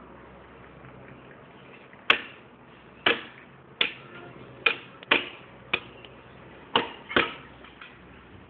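About eight sharp knocks, irregularly spaced, starting about two seconds in: a stick striking a liquid-filled plastic jar.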